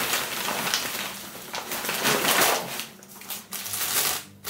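Crumpled paper packing and a clear plastic bag rustling and crinkling as a bagged plastic bottle is pulled out of a cardboard box, with a short lull about three seconds in.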